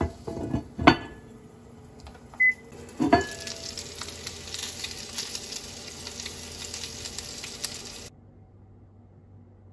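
A glass lid clinks against a cast-iron grill pan twice, about a second in and about three seconds in, with a short beep between the two clinks. Meat and vegetables then sizzle in the pan until the sound cuts off near the end.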